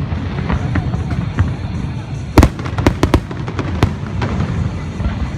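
Fireworks display: a series of sharp bangs, bunched together from about halfway through, over a steady low rumble, with music playing underneath.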